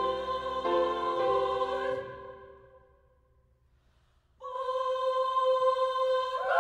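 Piano chords ring out and die away to near silence in the hall. About four and a half seconds in, the treble choir enters suddenly on a held chord, with more voices sliding in near the end.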